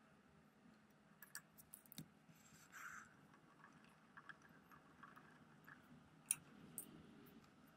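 Faint, scattered clicks and taps of hard plastic and metal parts as a monitor's stand and tripod base are handled and fitted together, with a brief rustle about two and a half seconds in. The sharpest click comes a little after six seconds, followed by a smaller one.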